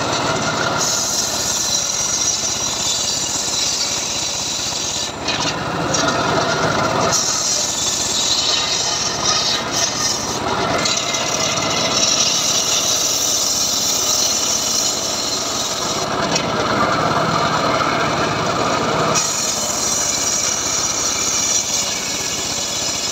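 Homemade bench circular saw ripping a mahogany plank lengthwise: a continuous loud cutting rasp from the blade in the wood. Its tone shifts every few seconds, between a higher hiss and a lower sound, as the plank is fed along.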